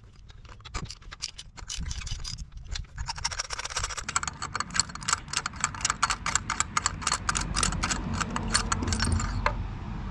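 Light metallic clicking and rattling: a few scattered clicks, then a quick, even run of clicks from about three seconds in that stops shortly before the end, over a low hum.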